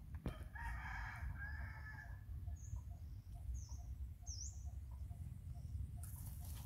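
A long bird call lasting about a second and a half, starting about half a second in, followed by a few short high chirps, over a steady low rumble.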